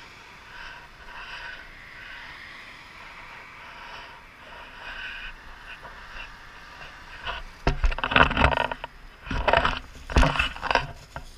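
Faint road traffic, then from about seven seconds in, loud bursts of close rustling and scraping as dry fallen leaves crunch underfoot.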